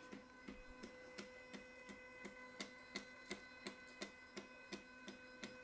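Stepper motor spinning a 3D-printed LIDAR scanner head through a timing belt, running quietly: a faint steady whine with a light tick about three times a second.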